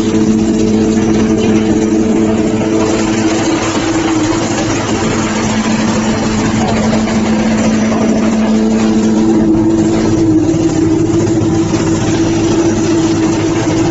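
Hay grinding machine running steadily: a constant mechanical hum with a noisy rush over it. The hum's tone shifts a little about two-thirds of the way through.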